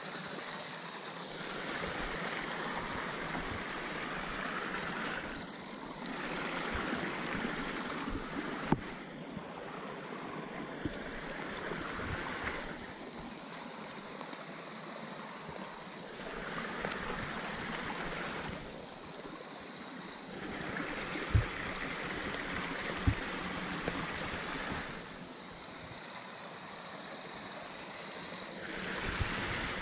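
Rushing water of a small creek tumbling over rocks. It grows louder and softer every few seconds, with a few sharp knocks in between.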